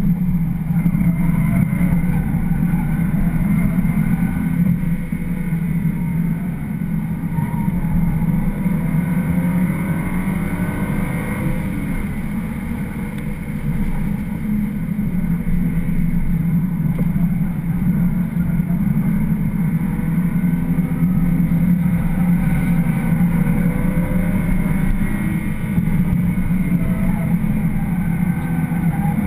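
BMW 335xi's twin-turbo straight-six running hard at track pace, heard from inside the cabin over tyre and wind noise. The engine pitch rises and falls several times, and the sound eases off briefly a little before halfway.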